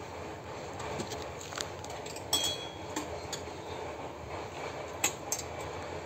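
A few sharp metallic clicks and clinks as metal luggage cases and fittings are handled on a motorcycle's rear rack. The loudest comes about two seconds in with a brief ring, and two more follow about five seconds in, over steady background noise.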